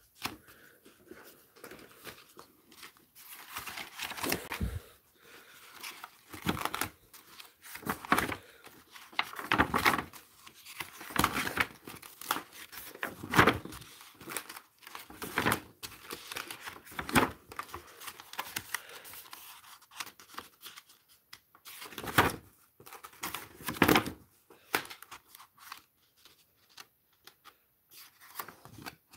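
Stiff painted paper sheets being leafed through and handled: irregular crackling and rustling strokes, one every second or two, some of them sharp.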